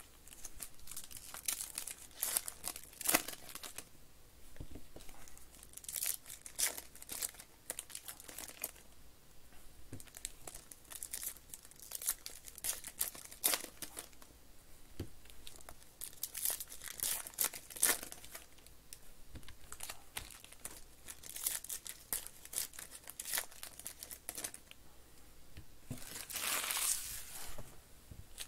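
Foil wrappers of 2021 Panini Prism Quick Pitch baseball card packs crinkling as the packs are handled and torn open, in quick irregular crackles, with a longer, louder crinkle near the end.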